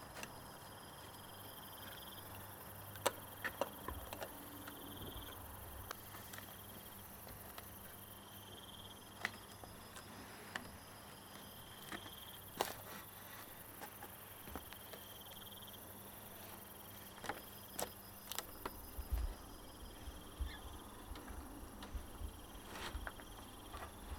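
Insects trilling in short repeated bouts at two high pitches, with scattered sharp clicks and knocks.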